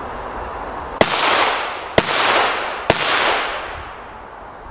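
Three Hestia Super Petardy firecrackers going off about a second apart. Each is a sharp bang with a trail that dies away over most of a second.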